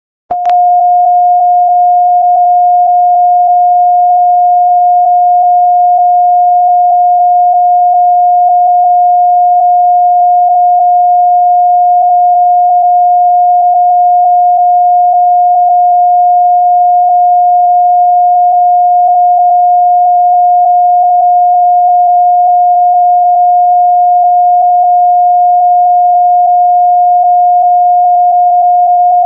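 A single steady electronic tone at one mid pitch, held unbroken for about half a minute: the attention tone of a homemade mock Emergency Alert System broadcast, sounding before the spoken alert.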